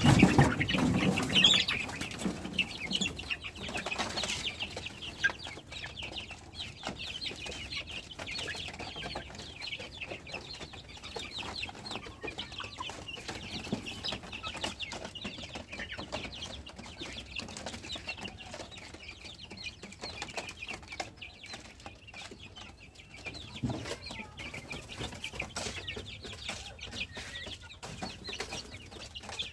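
Chickens clucking in a coop, a steady chatter of short calls, with a louder flurry of noise in the first two seconds.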